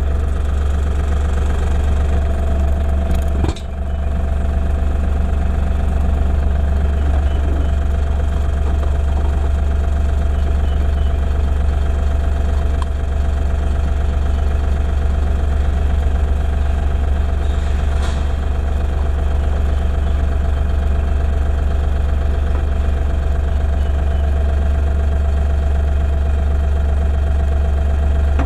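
LS MT240e compact tractor's diesel engine running steadily with a strong low drone.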